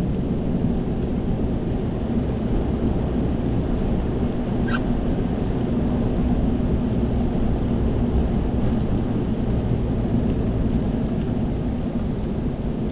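Chevy Silverado pickup driving on a snow-covered road, heard from inside the cab: a steady low rumble of engine and tyre noise. A single faint click comes about a third of the way in.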